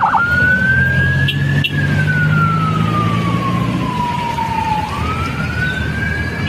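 Vehicle siren wailing in a slow cycle. Its pitch rises, falls over about three seconds, then rises again near the end. A low engine hum runs underneath for the first few seconds.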